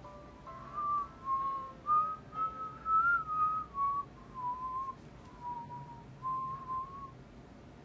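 A man whistling a tune through pursed lips: a single clear pitch stepping up and down in short phrases, stopping about seven seconds in.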